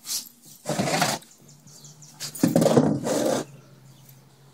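Black plastic oil drain pan being handled and scraped across a concrete floor: a short knock, then two noisy scrapes, the second longer.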